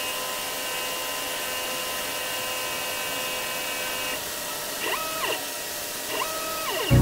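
A CNC 6040 router's stepper motors whine at one steady pitch as the Z axis creeps down onto a touch plate to zero the tool, and stop about four seconds in when the bit makes contact. Then come two short moves, each a whine that rises in pitch, holds and falls as the axis retracts, over a steady rushing hiss.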